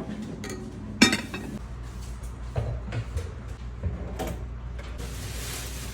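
Café coffee-making clatter: a sharp knock about a second in, then several lighter clunks and clinks of kitchenware, and a short hiss near the end, over a steady low hum.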